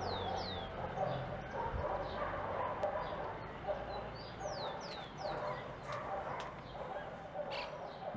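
Outdoor ambience of dogs barking in the distance and a bird giving quick falling chirps in groups of two or three, every few seconds.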